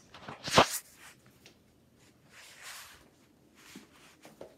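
Handling noise from a handheld phone: a loud, brief bump on the microphone about half a second in, then faint rustling and a few soft ticks.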